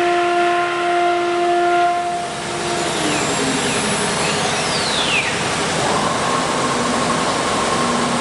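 CNC wood router at work: a steady high spindle whine for about two seconds, then it gives way to a loud, even hiss with a few falling whistles, and a new steady tone comes in about six seconds in.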